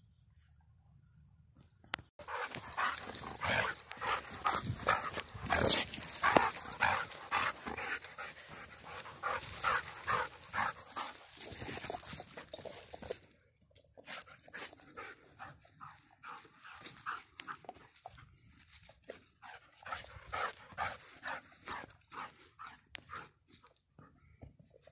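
A dog panting hard at close range while playing, in quick rough breaths. It starts suddenly about two seconds in, is loudest for the next ten seconds, then goes on more softly.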